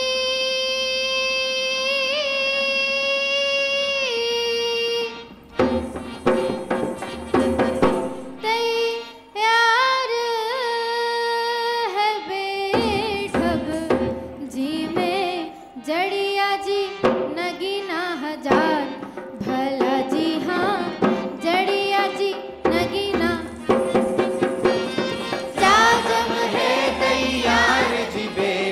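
Folk song sung live to a drum in the Malvi Mach style: a voice holds one long note, then at about five seconds a drum comes in and the singing carries on over the drum beat.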